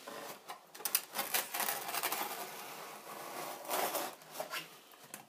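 Utility knife blade slicing through foam, a scratchy, crackling rasp. It runs for a few seconds, then comes back in a shorter stroke near the end.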